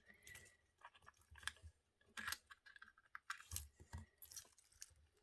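Faint, irregular small metal clicks and scrapes as the screw-down case back of an Orient quartz chronograph is being unscrewed.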